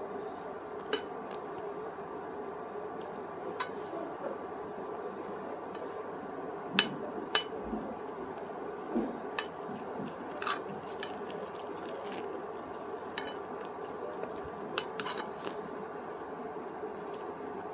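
Steel spoon clinking and scraping against a non-stick frying pan while pizza sauce is spread over the base: about ten sharp clinks every second or few, the loudest pair about seven seconds in, over a steady hum.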